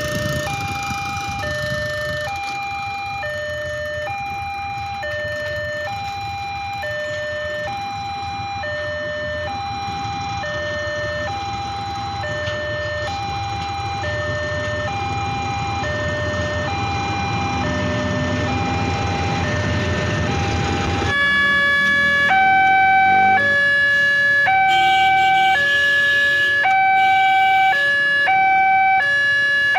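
Indonesian railroad level-crossing warning alarm sounding, a high and a low electronic tone alternating about once a second over a low rumble. About 21 s in it cuts to another crossing's alarm, louder, with its tones changing in a faster, uneven pattern.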